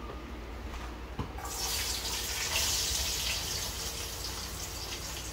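Chopped onion going into hot cooking oil in a pot: a light knock about a second in, then a sizzle that starts suddenly and eases off slightly toward the end.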